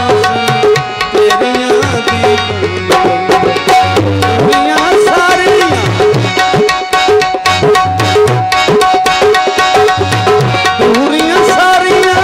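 Instrumental passage of a Punjabi/Saraiki folk song: a harmonium plays a melody over a held note, and a dholak keeps up a steady rhythm of hand strokes.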